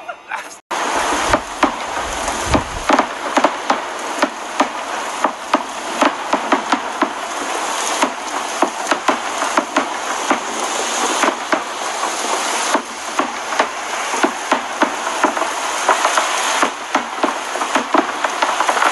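Heavy rain falling steadily, a dense hiss with many sharp irregular drop ticks, and a brief low rumble about a second in.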